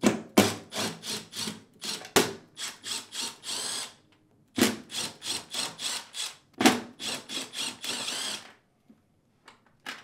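Cordless driver with a T15 Torx bit backing screws out of a dishwasher door's stainless steel inner panel. It runs in quick stuttering pulses of the trigger, in about four spells with short pauses between, and falls quiet about a second and a half before the end.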